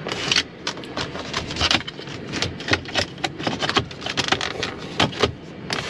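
Irregular clicks, knocks and scraping from a hand working the dashboard knobs and door-panel switches inside a pickup truck's cab.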